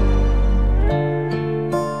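Instrumental background music: a held low chord drops away about a second in, then plucked notes sound over a steady bass note.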